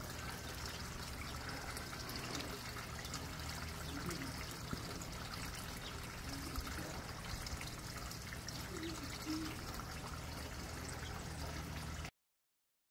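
Steady outdoor background noise: an even hiss with a low hum underneath, cutting off suddenly near the end.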